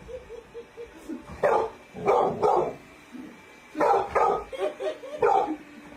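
A dog barking: three loud barks about a second and a half in, two more near the four-second mark and one near the end, with softer short yips between them.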